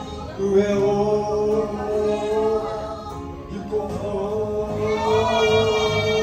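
A man singing karaoke into a microphone over a backing track, holding long, drawn-out notes.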